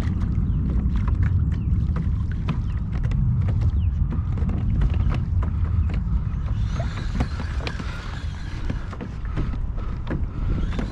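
Wind rumbling on the microphone, with a steady run of small clicks and creaks from the kayak and its fishing gear.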